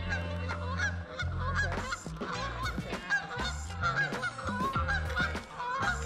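Many short honking waterfowl calls, one after another, over background music with a low bass line.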